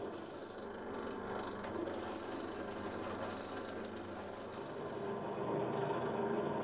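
Benchtop drill press running steadily, its small twist bit drilling into a block of wood.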